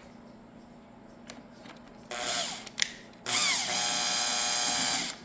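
Power drill driving a screw in: a short burst, a click, then a steady whine for about two seconds as the screw is tightened down.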